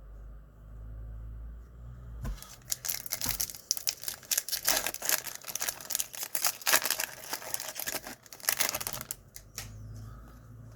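Wrapper of a Donruss Optic baseball card pack being torn open and crinkled: a dense run of crackles and clicks starting about two seconds in and lasting about seven seconds.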